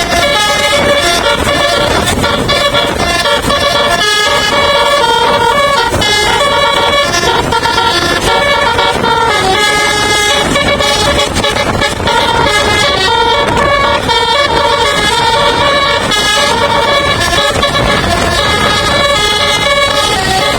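A bus's multi-tone telolet musical air horn playing a tune: several loud horn notes sounding together and stepping from pitch to pitch, with short breaks between phrases.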